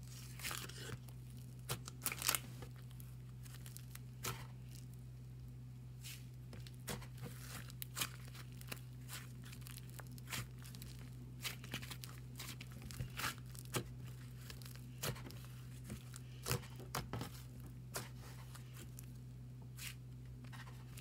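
Slime being squished and stretched by hand, giving irregular crackling pops and tearing sounds, over a steady low hum.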